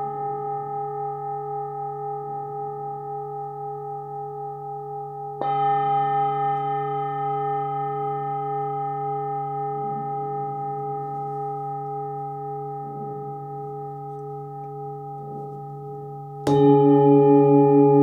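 A 23.5 cm Nepalese singing bowl with a fundamental of about 143 Hz (D) is struck twice, about five seconds in and again near the end, the second strike louder. After each strike it rings on with a long, slowly fading tone and a slight wavering, carrying higher overtones above the low hum.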